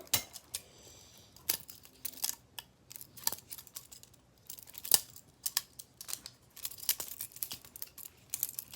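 Butterfly knife (balisong) being flipped: a fast, irregular run of sharp metal clicks and clacks as the handles swing around the blade and snap together.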